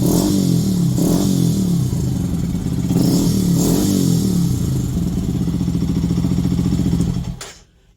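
Benelli TNT 125 motorcycle's single-cylinder engine running at idle with a few short throttle blips, then switched off about seven and a half seconds in.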